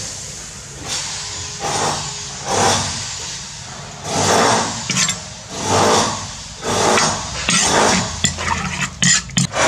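Peanuts and red chillies sizzling in oil in a wok, the hiss swelling and fading roughly once a second. Near the end a metal spoon stirs them, scraping and clinking against the wok.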